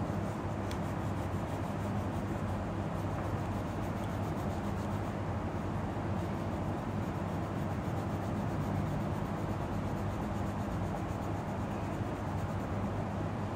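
Colouring pencil rubbing on paper in quick strokes as a picture is coloured in, over a steady low hum.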